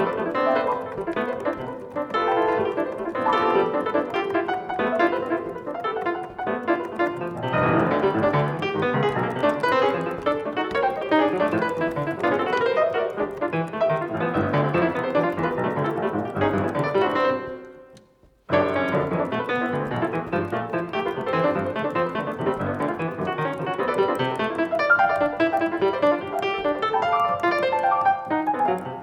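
Solo piano playing a dense, flowing passage of many overlapping notes. It dies away to silence about 17 seconds in, then starts again abruptly a second later.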